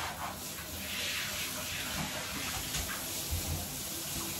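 Water running into a bathtub: a steady hiss and splash.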